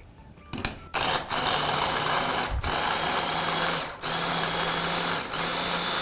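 Hand blender's motor running on its chopper attachment, chopping cooked ripe plantain in several bursts with brief stops between them. Two clicks come just before it starts.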